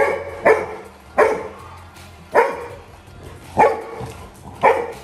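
Labrador retriever barking six times in short, loud barks at irregular intervals of roughly half a second to a second.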